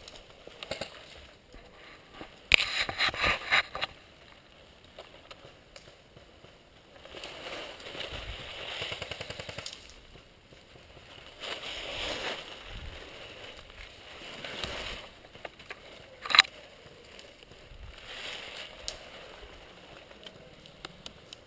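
Airsoft gun firing a rapid automatic burst of several shots lasting about a second, and much later a single sharp shot, with stretches of soft noise in between.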